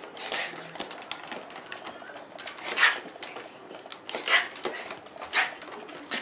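A dog breathing with difficulty: four rough, rasping breaths at uneven gaps, the loudest about three seconds in, with light clicking between them. The owner thinks these episodes may be reverse sneezing.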